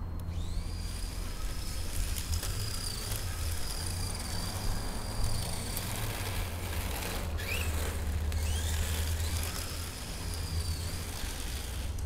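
Electric motor of a Tamiya TT-01D RC drift car whining at a high pitch. It rises quickly as the car accelerates and then holds fairly steady, stops a little before halfway, then whines up again and holds until shortly before the end. A steady low rumble runs underneath.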